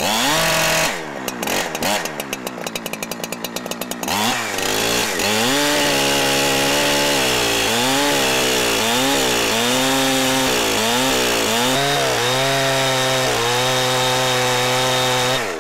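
Petrol chainsaw blipped and falling back to idle for a few seconds, then opened up to full revs about four seconds in to cut down through a dry, dead log. Its pitch dips again and again as the chain bites into the wood, then holds high.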